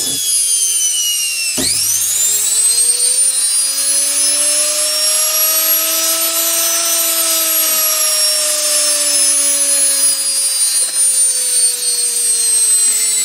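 Washing machine universal motor running on mains with a high electric whine. About two seconds in there is a knock, and then the whine climbs steeply in pitch as the motor speeds up running unloaded. It levels off and then drifts slowly down again over the last few seconds.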